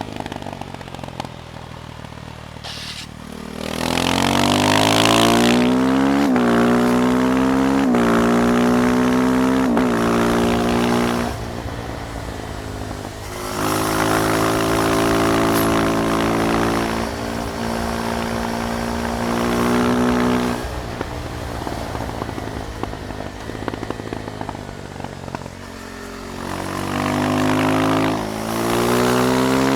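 KTM Duke 390's single-cylinder engine pulling through the gears: revs climb, drop sharply at each upshift and climb again. It eases off to a lower, quieter run about two-thirds of the way through, then accelerates hard again near the end.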